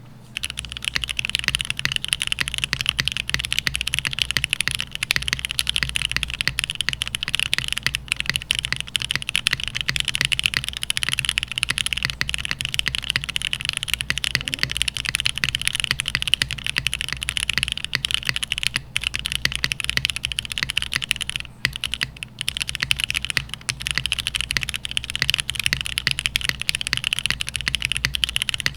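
Continuous typing on a custom F1-88 mechanical keyboard with stock Gateron Oil King linear switches in a 1.2 mm FR4 gasket-mounted plate and GMK keycaps, rapid keystrokes clacking throughout with a couple of brief pauses. The uploader notes a lot of spring ping and leaf ping from the unmodified switches.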